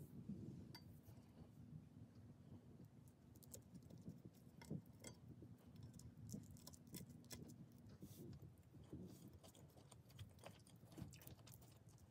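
Faint, scattered small crackles and clicks as a crisp-edged appam is torn by hand and mixed into vegetable stew.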